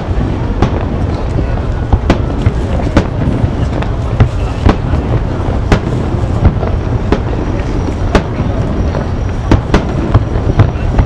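Aerial fireworks shells bursting in irregular succession: many sharp bangs over a steady low rumble.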